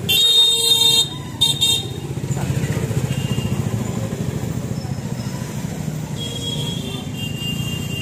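A vehicle horn honks twice, a loud toot of about a second and then a short one, over the steady low running of passing motorcycle and street traffic.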